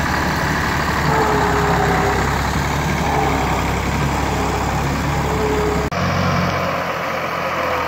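Ford 4610 tractor's three-cylinder diesel engine running steadily as it tows a heavily loaded firewood trolley. A brief dropout about six seconds in is followed by a slightly different engine sound.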